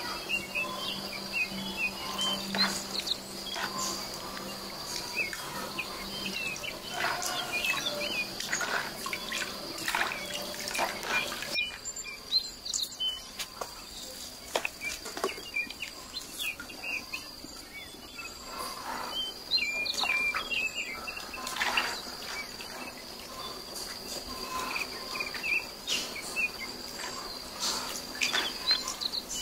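Steady high insect drone, like crickets, with scattered bird chirps, broken by frequent short knocks and clicks of things being handled, which are the loudest sounds.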